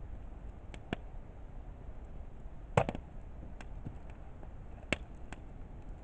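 Wood campfire burning with a low steady rush, broken by scattered sharp crackles and pops, the loudest about three seconds in.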